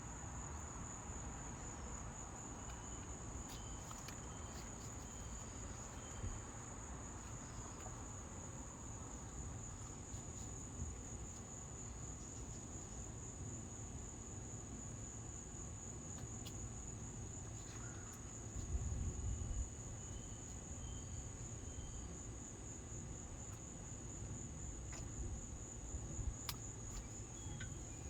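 Steady high-pitched chorus of crickets, with a faint low background rumble, a few light ticks and a brief low thump near the middle.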